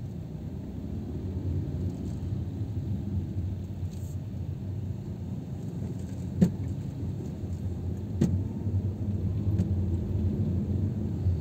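Steady low rumble of a car's engine and tyres heard from inside the cabin at low speed, with two sharp clicks, one about six seconds in and a smaller one about two seconds later.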